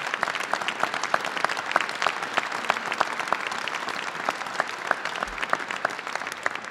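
Crowd applauding, many hands clapping steadily.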